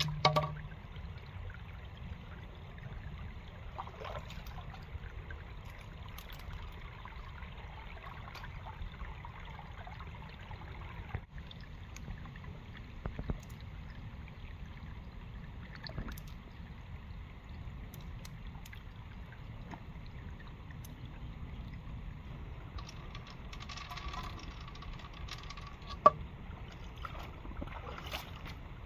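Shallow stream trickling over rocks, with small splashes from wading, and one sharp knock near the end.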